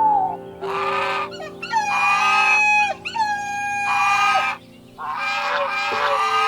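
An animal giving several long, drawn-out cries, each held at a steady pitch and dropping off at the end, over soft background piano music.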